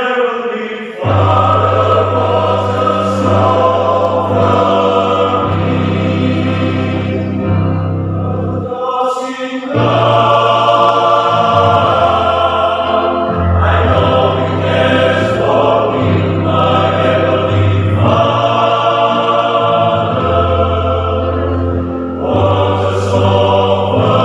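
Men's choir singing a piece in several parts, with a strong deep bass line. The low voices come in about a second in, and the sound breaks off briefly for a breath about nine seconds in before the next phrase.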